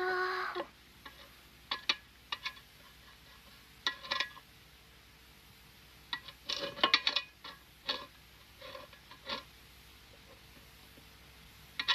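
Scattered light clicks and knocks in small groups, with a brief pitched tone at the very start.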